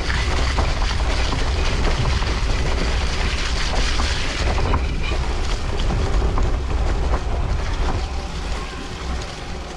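Gravel bike's tyres rolling over the road at speed, a steady crunching rush with wind rumbling heavily on the microphone. It eases off and grows quieter near the end.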